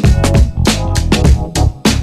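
Background music with a steady drum beat and bass, in a funk-like style.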